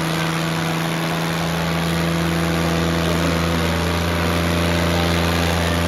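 Tractor diesel engine running steadily at a constant pitch; its deep low tone grows stronger about a second and a half in.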